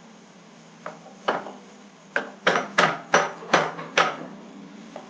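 Metal parts and bolts clanking as they are handled and set down: about eight sharp clinks with a brief ring, a couple early on and then a quicker run of about three a second in the second half.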